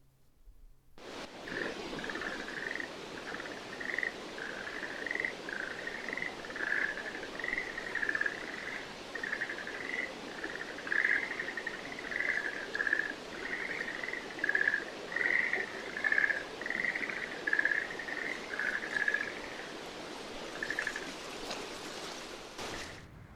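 Schlegel's green tree frogs calling: a long series of short trilled croaks, about two a second, over a steady background hiss. The calls stop shortly before the end.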